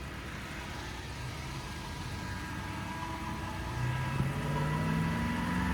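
Honda Civic engine idling steadily, its exhaust leaks freshly welded shut. About four seconds in, its pitch and level climb gently, as if the revs are coming up a little.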